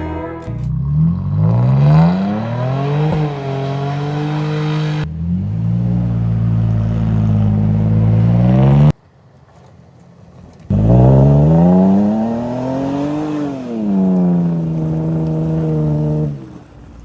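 Vehicle engine accelerating, its pitch rising and then holding steady. It cuts off abruptly about nine seconds in, leaving a quieter rumble, then comes back with a second rise and fall in pitch.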